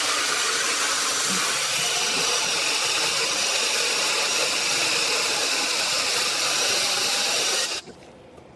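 Battery-powered 6-inch mini chainsaw running steadily under power, with a high whir and hiss, until it stops suddenly about eight seconds in.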